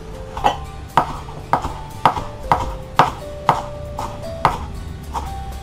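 Kitchen knife chopping fresh parsley finely on a wooden cutting board, a steady knock about twice a second.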